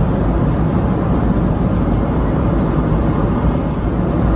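Steady low rumble inside a Boeing 777-300ER's cabin in flight: the drone of its GE90 engines and rushing air.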